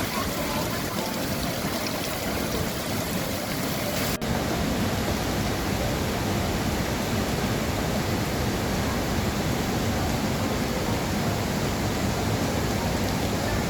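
Steady rush of running water from a small waterfall, with a short break about four seconds in where the recording cuts.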